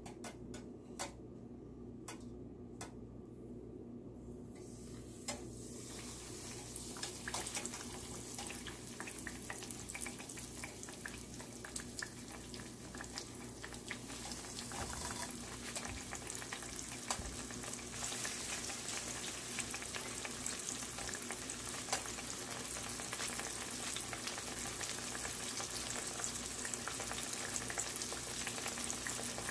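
Fish fillets coated in flour and semolina sizzling in hot oil in a frying pan. For the first few seconds there are only scattered crackles. The sizzle starts a few seconds in as the first fillet goes into the oil and builds as a second one is laid in.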